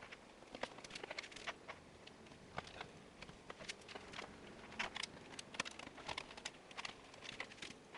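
Faint, irregular small clicks and ticks of a screwdriver turning motherboard screws into the case's standoffs, metal on metal.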